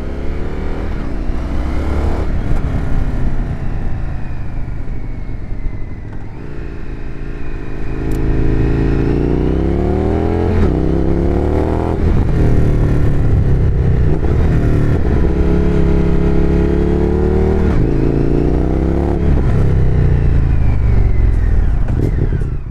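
Indian FTR 1200 Rally's V-twin engine running through a Jekill & Hyde valved exhaust while being ridden, its pitch rising and falling again and again as the bike accelerates and eases off. The valve is closed at first, fairly quiet. Partway through it is opened and the exhaust turns louder and bassier.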